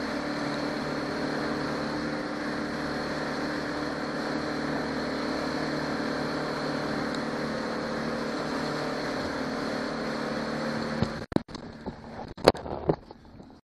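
Johnson 90 hp V4 two-stroke outboard running steadily with the boat under way, its steady engine note under the rush of water and wind. Near the end the sound breaks up into a few sharp knocks and bumps of the camera being handled.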